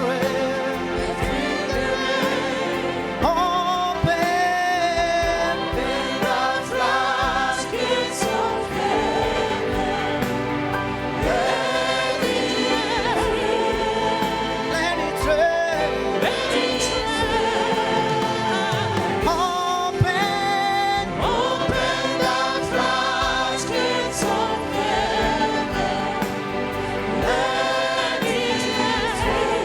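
A gospel choir singing with instrumental backing, the voices carrying a continuous melody.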